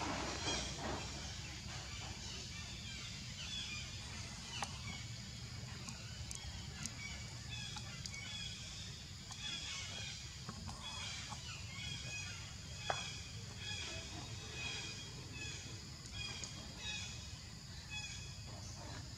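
Many short, high-pitched animal chirps and squeaks, over a steady low rumble, with two sharp clicks.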